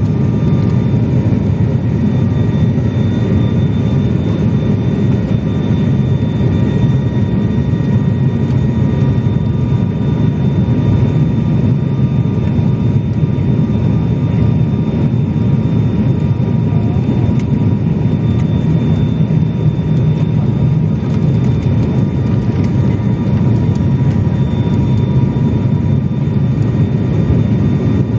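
Steady cabin drone of an ATR 72 turboprop airliner's engines and propellers on approach to land, a deep hum with a thin steady whine above it, heard from inside the cabin.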